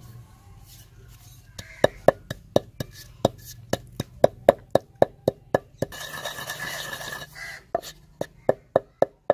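Wooden pestle pounding whole cumin seeds in a heavy stone mortar: sharp knocks at about four a second. The pounding breaks off for about a second and a half a little past halfway, then starts again.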